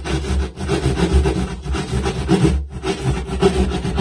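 Hand jab saw cutting through drywall in quick back-and-forth strokes, with a few brief pauses between runs.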